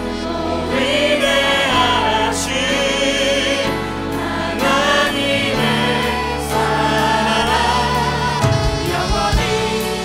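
Live worship band music: several voices singing long wavering notes over the band, with an Alleva Coppolo LG5 five-string electric bass playing steady low notes that turn shorter and choppier near the end.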